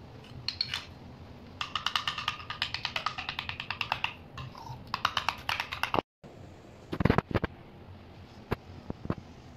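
A metal spoon stirs tahini into yogurt in a plastic bowl, clicking rapidly against the bowl's sides in two runs of a couple of seconds each. After a brief break there are a few dull knocks.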